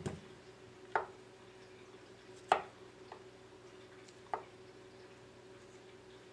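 Four sparse, light clicks of a metal kitchen utensil against cucumber pieces and a plastic cutting board while a cucumber is being seeded, the loudest about two and a half seconds in, over a faint steady hum.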